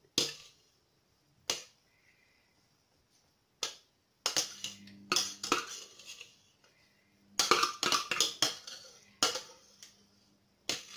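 Sharp clinks, knocks and scrapes of a utensil against a container and glass as crushed ice is scooped onto a glass of lemonade: a few single knocks, then denser clusters from about four seconds in.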